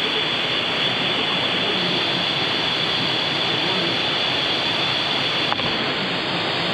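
Waterfall pouring steadily, an even rush of water.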